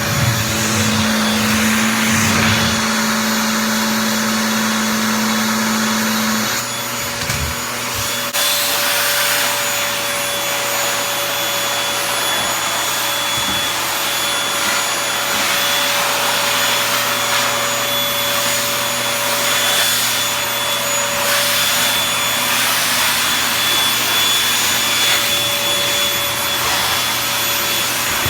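Vacuum cleaner running steadily with a constant whine. About six or seven seconds in, a low hum drops out and the sound dips and shifts for a moment before running on evenly.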